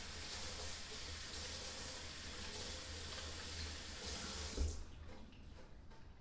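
Kitchen tap running into the sink while hands are washed under it, shut off about four and a half seconds in with a short thump.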